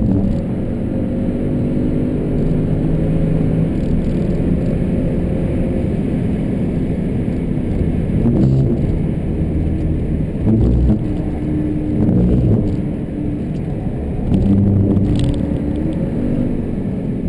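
Jaguar XFR-S's supercharged 5.0-litre V8 being driven hard on a track lap, its engine note rising and falling with several louder surges.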